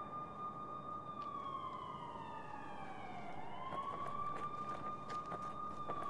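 A police siren wailing faintly. Its high tone holds steady, slides down over about two seconds, climbs quickly back up about three seconds in, then starts to fall again near the end.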